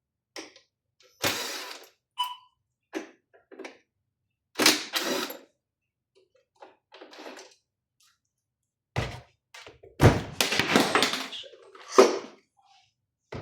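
Irregular knocks and clatter from the casing and parts of a Mindray SV300 ventilator being handled as the unit is taken apart, the busiest and loudest about ten to twelve seconds in.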